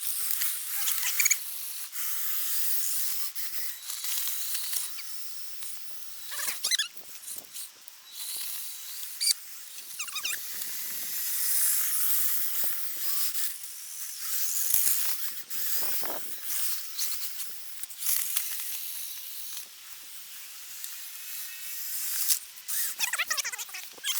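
Electric motors and gears of radio-controlled trucks whining as they drive through snow, rising and falling with the throttle, with scattered sharp clicks.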